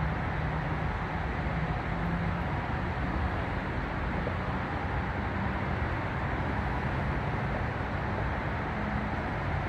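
Steady city traffic noise with a low engine hum coming and going underneath.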